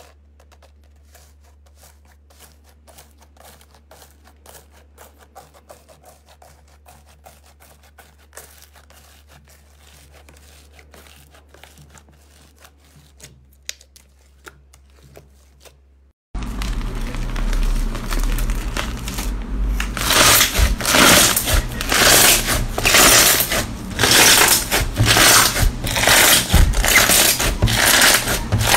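Soft slime being pressed and stretched by hand, with faint sticky crackling and popping. About 16 seconds in, loud crunching starts as a slime packed with small beads is squeezed by hand, with a crunch about once a second.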